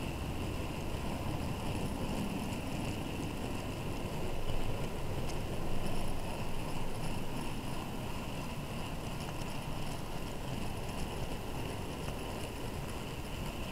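Steady rumble and rattle of model railway wagons rolling along the track, picked up by a tiny camera riding in one of the open mineral wagons, with a constant hiss over it.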